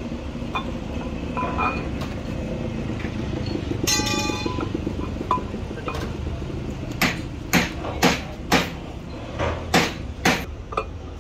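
Steel parts of a hydraulic breaker knocking together as its chrome piston is worked into the housing: one ringing metallic clink, then about eight sharp knocks in quick succession near the end, over steady low background noise.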